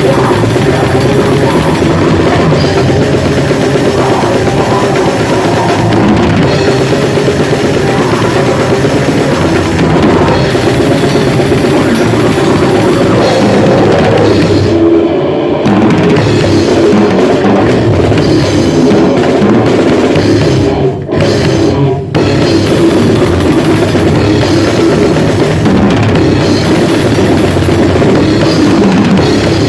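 Grindcore band playing loud and fast: distorted guitars and bass over a pounding drum kit. There is a brief break in the guitars about halfway, and two abrupt stops a little later.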